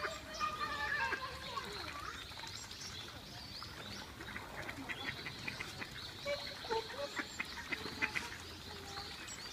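Mallard ducks feeding on the water, quacking in short calls, with a run of quick, chattering clicks in the middle.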